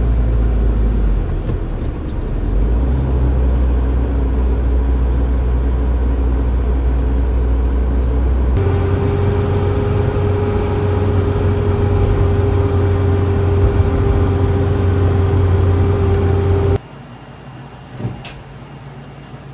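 Steady low engine rumble, as heard riding in a motor vehicle, changing character abruptly about eight seconds in and cutting off suddenly near the end to quiet room noise with a single knock.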